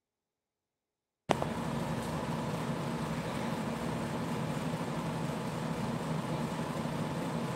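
Dead silence, then about a second in the sound cuts in with a click to a steady low rumble and hiss of background noise, with a faint steady hum above it.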